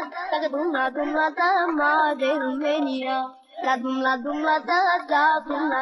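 A high voice singing a melody with a wavering pitch, pausing briefly about three and a half seconds in. No instruments are heard under it.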